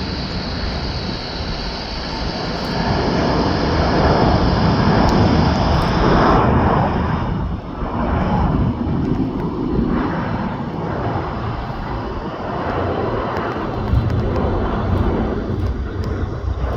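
Jet airliner's engines running loud as it passes on a takeoff or landing at the airport: a dense rumble, loudest about four to seven seconds in, where a high hiss drops away and leaves a wavering low rumble.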